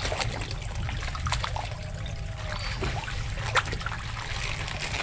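Water from a pond pump's return splashing and trickling into a koi pond: a steady splashing with many small drips and plops.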